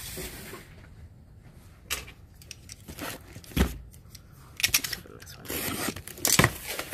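Small packaged items and packaging being handled: scattered clicks and taps, a louder knock a little past halfway, then a cluster of sharp clicks and a stretch of paper or plastic rustling near the end.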